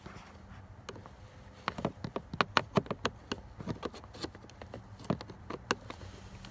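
Small screwdriver prying at the plastic clip behind a car's push-to-start button: a run of irregular clicks and taps, thickest in the middle stretch.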